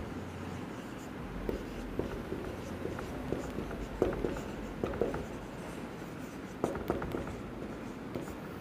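A marker pen writing on a whiteboard: a run of short scratching strokes as a word is written out.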